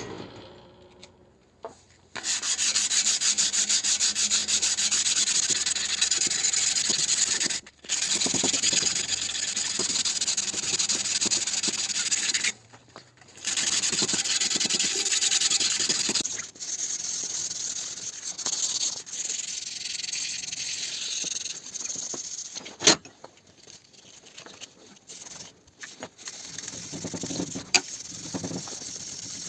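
Sanding: an abrasive rubbing hiss that starts about two seconds in and runs in long passes with two short breaks. It turns quieter and patchier in the second half, and there is a single sharp click near the middle.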